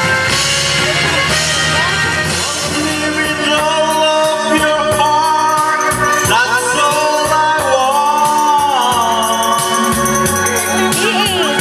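A man singing into a microphone over amplified backing music with a steady, shaker-like percussion beat.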